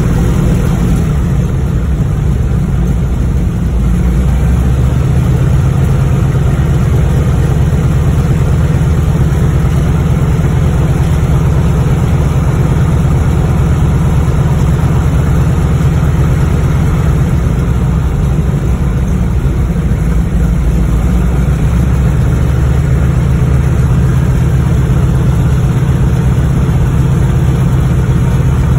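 Propeller plane's engine running steadily, heard from inside the cabin while the plane taxis.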